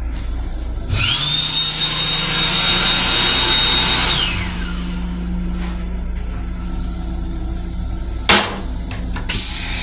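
Electric hand dryer in a train restroom starting up and blowing for about three seconds with a steady high whine, then winding down. The railcar's steady low hum runs underneath, and a single sharp knock comes near the end.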